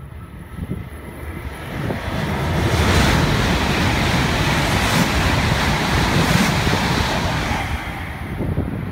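Hokuriku Shinkansen E7/W7-series high-speed train passing at speed close by: a rushing noise that builds over the first few seconds, then holds loud and steady while the train goes by, easing slightly near the end.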